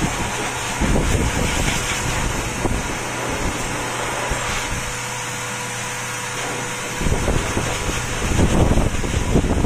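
Steady hiss of a fan-like machine with a faint steady hum, and stretches of low rumbling about a second in and again from about seven seconds in.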